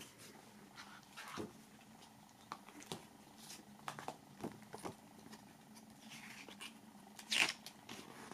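Cardboard CD case and paper booklet being handled: scattered soft taps and rustles, with a louder rustle near the end, over a steady low hum.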